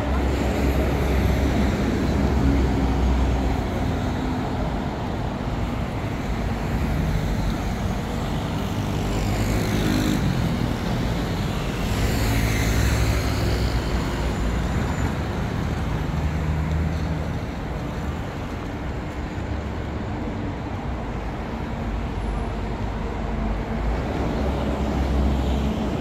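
Road traffic on a city street: steady engine and tyre noise with a low rumble, and a couple of vehicles passing close around the middle.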